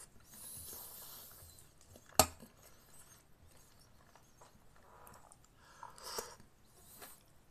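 A metal spoon clinks sharply once against a soup bowl about two seconds in, amid soft sipping and chewing as soup is eaten from the spoon.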